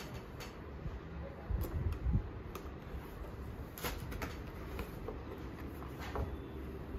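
Hands handling a cardboard gift box and lifting off its lid: scattered light taps, scrapes and rustles of cardboard and paper.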